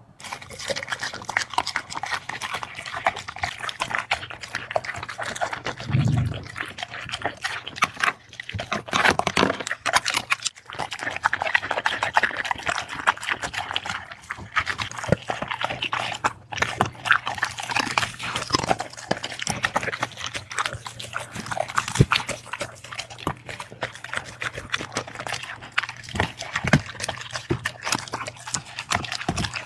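Dog eating noisily: a continuous stream of wet chewing, smacking and crunching clicks.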